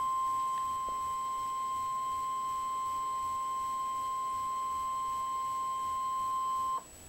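NOAA Weather Radio 1050 Hz warning alarm tone: one steady, high, pure tone that cuts off sharply near the end. It is the alert signal that comes before a severe thunderstorm warning message.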